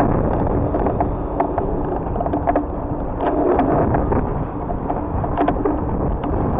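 Busy city street noise with a steady low rumble, picked up by a bicycle-mounted camera as the bike rolls slowly behind other cyclists, with scattered clicks and rattles.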